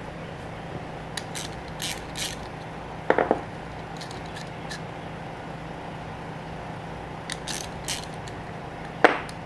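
Bolts being turned in by hand on a refrigeration compressor's shaft-seal cover plate: a scatter of light metallic clicks and ticks, with a louder knock about three seconds in and a sharp one near the end. A steady low hum runs underneath.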